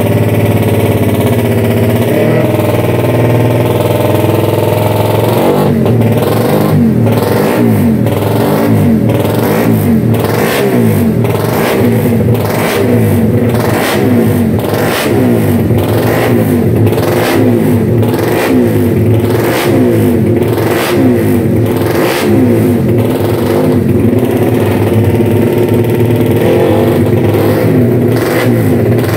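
Honda GTR race bike's single-cylinder engine idling steadily, then revved in short throttle blips, about one a second, from about six seconds in until near the end.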